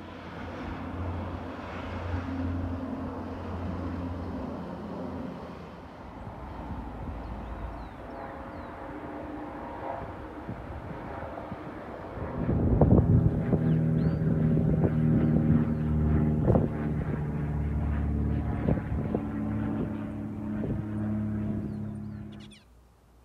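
Motor vehicle engine running steadily, louder from about halfway with a few knocks over it, then cutting off abruptly shortly before the end.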